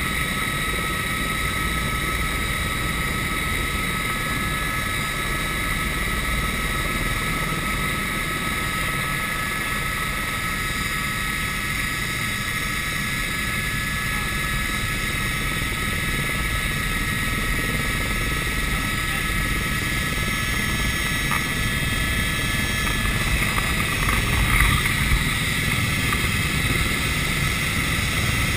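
Helicopter turbine engine and main rotor running, heard from inside the open cabin: a steady high turbine whine over a constant rotor rumble, getting a little louder about three-quarters of the way through.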